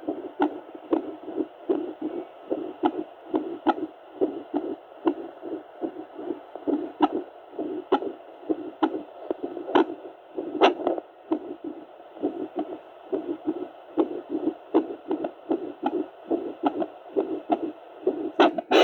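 Heartbeat picked up by a Doppler ultrasound monitor and played through its speaker: a fast, even rhythm of whooshing pulses, about two beats a second, with faint clicks on some beats. The pulsing cuts off suddenly at the very end.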